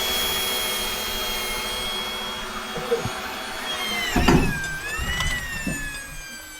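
A motor-driven machine running with a steady whine, with a few knocks about four seconds in; near the end it starts to slow, its whine falling in pitch.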